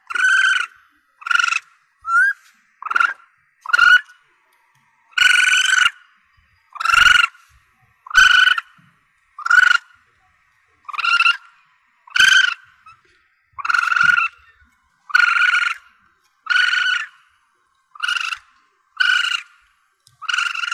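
Asian palm civet kitten (musang pandan) calling: a regular series of short, high cries, nearly one a second, some drawn out longer than others.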